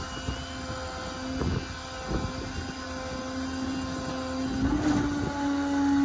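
Stellar 7621 service-truck crane's hydraulic system running as the boom lowers: a steady whine that steps up slightly in pitch about three-quarters of the way through.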